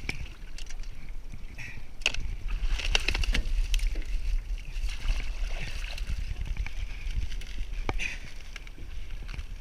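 Water sloshing and splashing around a canoe as a person wades and pulls himself along it, with a few sharp knocks against the hull, the clearest about two, three and eight seconds in.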